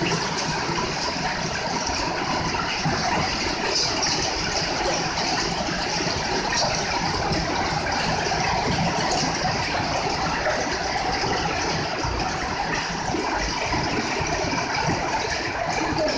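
Steady rain falling: an even, unbroken hiss of water.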